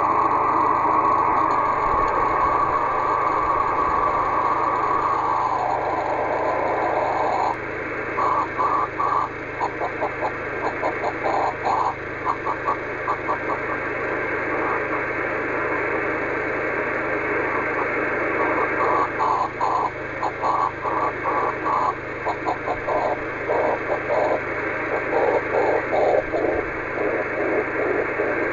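OH3SHF 10 GHz beacon signal scattered back from rain, heard as receiver audio: a hissing, smeared tone near 1 kHz over radio noise. About seven seconds in it breaks into a rapid fluttering, chopping tone that sits lower in pitch near the end. The smearing and shifting pitch are the Doppler shift of the rain carried by the wind.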